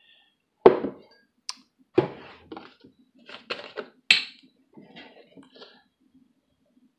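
Kitchen handling sounds: a coffee mug set down on the counter with a knock, then a series of clicks and light knocks as a carton of almond milk is handled, with a sharp click about four seconds in and softer rattles after it.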